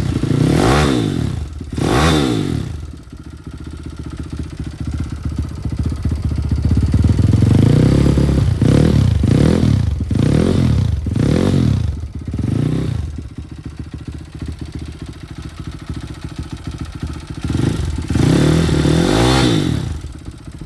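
YCF SM155 pit bike's single-cylinder four-stroke engine running through an aftermarket YCF racing muffler on unchanged jetting, idling between quick throttle blips. There are two revs at the start, a run of about five short revs in the middle, and one more near the end.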